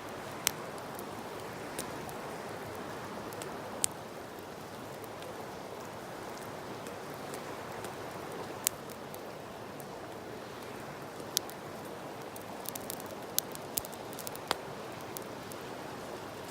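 Steady sound of flowing river water, with the sharp pops of a wood campfire crackling scattered through it, several of them bunched together near the end.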